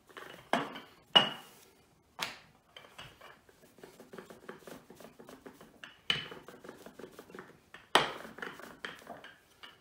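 Wooden rolling pin rolling pasta dough flat on a benchtop: a soft, uneven rumble of rolling, broken by five sharp knocks of wood on the counter.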